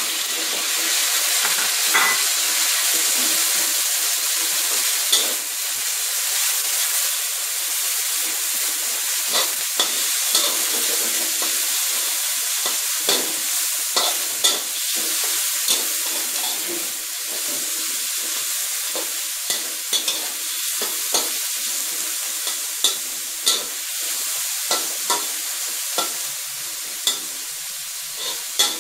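Sliced pork sizzling in hot oil and garlic in a wok, stirred with a spatula that scrapes and clicks against the pan at irregular moments.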